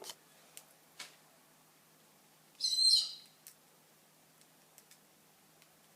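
Pet budgerigar giving one short, high, warbling chirp about halfway through, with a couple of faint clicks before it.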